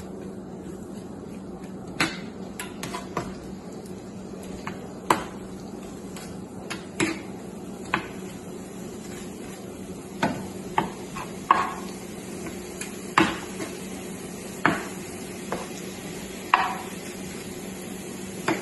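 Plastic spatula stirring and turning shrimp in a nonstick frying pan: irregular clicks, taps and short scrapes against the pan, a few with a brief ring, over a steady low hum.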